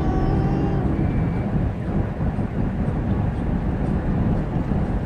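Steady low rumble of a car's tyres and engine heard from inside the moving cabin. A faint held tone fades out in the first second or so.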